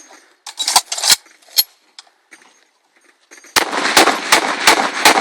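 A few sharp metallic clicks and knocks as the weapon is charged. About three and a half seconds in, rapid, evenly spaced gunfire begins, about three to four shots a second.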